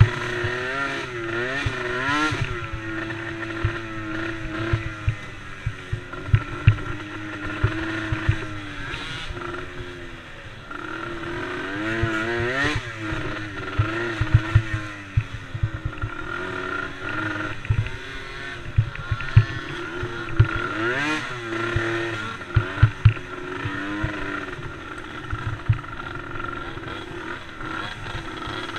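Small race engines of youth machines, such as the DRR DRX90, running on a track. Several engines are heard at once, their pitch rising and falling as the riders rev up and back off, with frequent short sharp knocks throughout.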